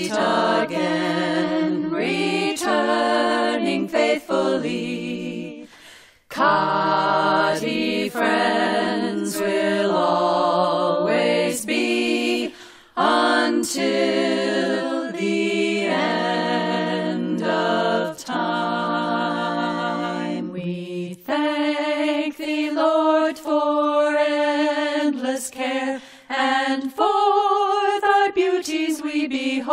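A group of voices singing a cappella in harmony, phrase by phrase with short breaks between. About two-thirds of the way through, the lowest part drops out and the higher voices carry on.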